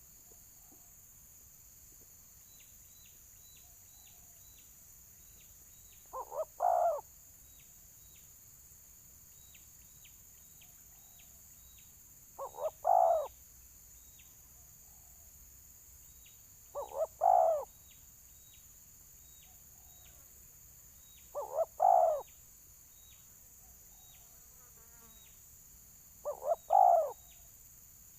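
Spotted dove cooing its territorial 'fighting' call, five times at intervals of about five seconds, each call two short notes followed by a longer coo. Faint insect ticking runs underneath.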